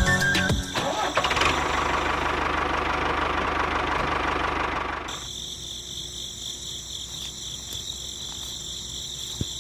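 A small motor or engine running: a rough, noisy run with a fast low pulsing, then about halfway through it drops to a quieter, steadier run with a high whine.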